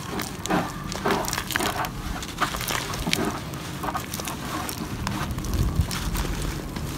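A packed block of gritty dirt being squeezed and broken apart by hand, with a dense run of crunching and crackling as it crumbles and grit falls away. A few dull low thuds come a little before the end.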